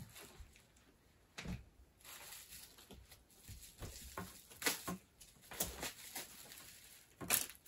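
Light handling noises from unpacking a toy remote control: scattered small clicks and brief rustles of packaging, with a sharper click near the end.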